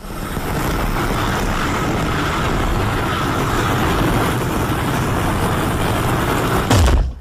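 A steady, loud low rumble with a hiss over it, of the kind a running vehicle makes. Near the end comes a single sharp knock with a low thump, and then the sound cuts off suddenly.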